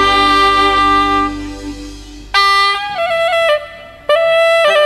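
Live band music led by a reed woodwind playing a melody: a long held note fades away over the first two seconds, then phrases of held notes that step up and down in pitch come in about two seconds in and again near the end.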